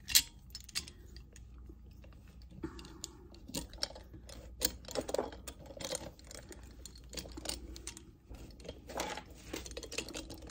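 Metal wing corkscrew being worked on a wine bottle: a string of small irregular clicks, ticks and scrapes of metal on glass and cork, with one sharp click just after the start.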